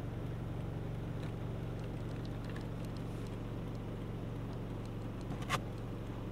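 A vehicle engine idling steadily, with faint scattered crackles and one sharp crack about five and a half seconds in.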